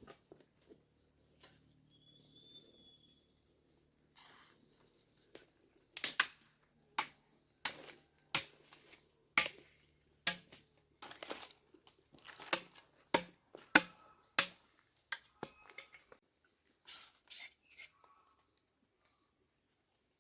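A series of sharp clicks and knocks of hard objects, roughly one every half second to second, with a quick cluster of them near the end; a couple of faint chirps come before the knocking starts.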